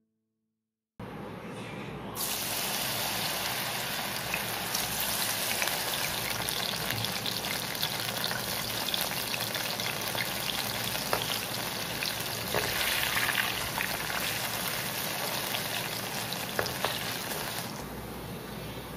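Coated soya chunks deep-frying in hot oil: a steady sizzle with scattered pops and crackles. It starts suddenly about a second in.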